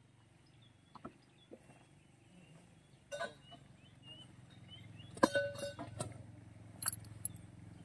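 Scattered metallic clanks and clinks from drilling-rig equipment being handled. There is a cluster of knocks about three seconds in and a louder cluster, with one short metallic ring, about five seconds in, all over a low, steady engine hum.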